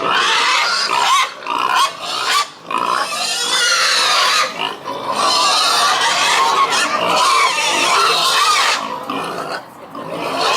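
Pigs squealing, loud and noisy: long, rough calls broken by a few short pauses.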